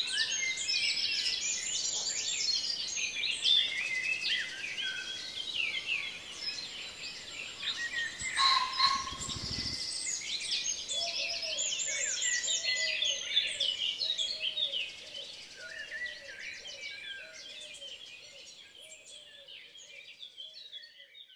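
Birdsong ambience: many small birds chirping and trilling, with a lower call repeating about twice a second through the second half. A brief low noise comes about eight seconds in, and the whole bed fades out near the end.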